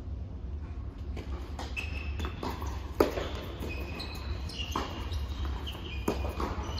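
Tennis rally on an indoor hard court: rackets striking the ball and the ball bouncing, a sharp pop every second or so, the loudest a close hit about three seconds in. Sneakers squeak briefly on the court surface in the middle of the rally, over a steady low hum.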